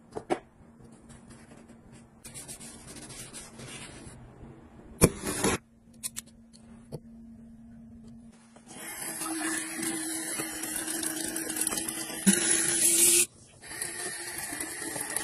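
Soft rubbing and handling noises, with a sharp knock about five seconds in. From about nine seconds in, tap water runs through a swivel faucet extender into a sink; it is louder for a moment near thirteen seconds, stops briefly, then runs again.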